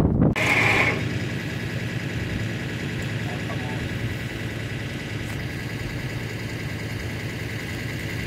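Four-wheel-drive engine idling steadily while the vehicle waits, hooked to a snatch strap for a sand recovery. A brief louder rush of noise comes in the first second.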